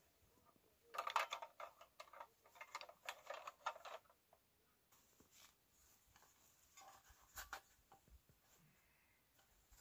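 Rustling and crinkling of fabric being handled: a run of quick rustles lasting about three seconds from about a second in, then a brief one later, with near silence between.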